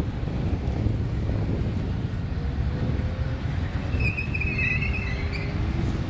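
Ford XG ute's 460 cubic-inch V8 idling, a steady low rumble from its twin rear exhaust pipes.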